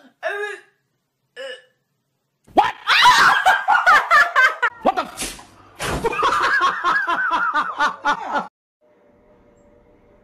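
People laughing hard in two long loud bursts, with a sharp click between them, after a couple of short vocal sounds at the start. A faint steady hum follows near the end.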